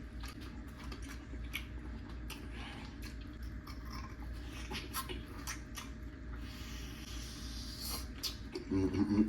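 A person chewing chargrilled, cheese-topped oysters: soft wet smacks and mouth clicks scattered irregularly, over a low steady hum.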